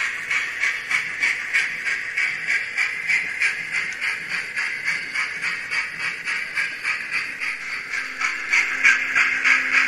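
Steam-locomotive exhaust chuffs with hiss, played by a Hornby TTS sound decoder through the small speaker of an N gauge Graham Farish Flying Scotsman as it runs, a steady beat of about three chuffs a second. Background music fades in near the end.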